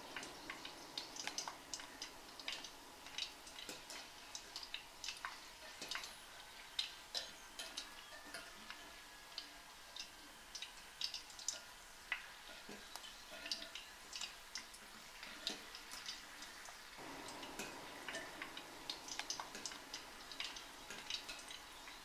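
Sesame balls deep-frying in hot oil: irregular crackling and popping over a faint steady sizzle.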